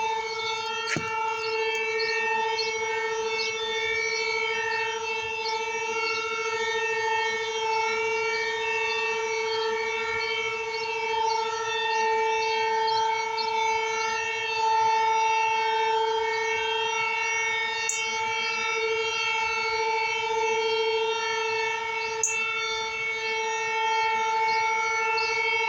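Outdoor warning siren being tested, holding one steady tone that swells a little in loudness.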